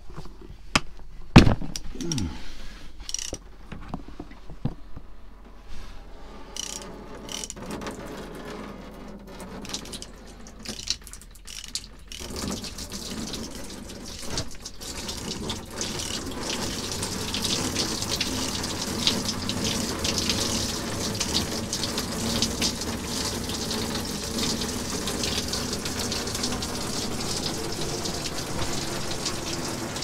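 A socket ratchet clicks on a long extension bar as the sump drain plug of a CAT D11 bulldozer is worked loose, with one sharp metallic clank about a second and a half in. From about twelve seconds in, engine oil gushes from the sump and splashes steadily into a plastic tote, growing louder for a few seconds and then holding steady.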